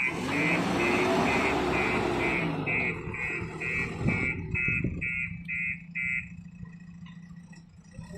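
Bulldozer's reversing alarm beeping about twice a second over its diesel engine, which runs loud with the pitch rising and falling, then drops to a steady idle; the beeping stops a little after six seconds in.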